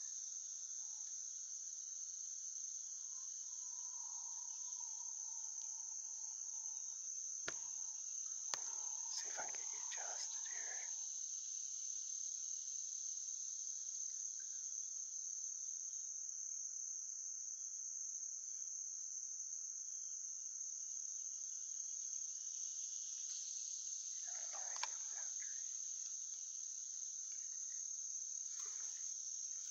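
Chorus of insects in a summer forest: one steady, high-pitched drone that doesn't let up, with a few faint clicks and rustles around it.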